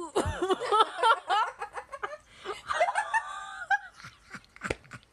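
A person laughing in quick, choppy bursts, then again more drawn out about three seconds in. There is a single knock about four and a half seconds in.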